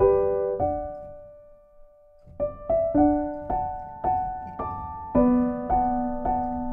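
Background piano music: slow single notes ringing out, fading to a near-silent pause about a second and a half in, then resuming with notes about twice a second.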